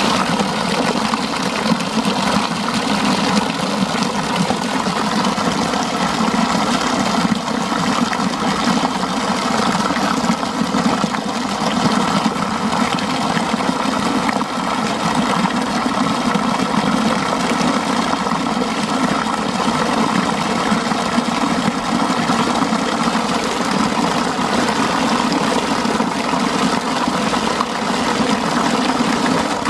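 Water pouring steadily from a pipe and splashing into a shallow concrete gutter.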